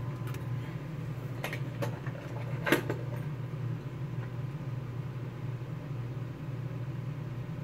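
Steady low room hum, with a few light clicks and knocks of small objects being handled, the loudest about three seconds in.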